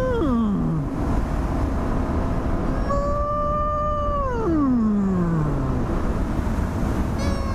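A person mooing at cows: three drawn-out moo calls, each held on a high note and then sliding down in pitch. One trails off about a second in, the longest comes about halfway through, and another starts near the end, all over a steady low rumble.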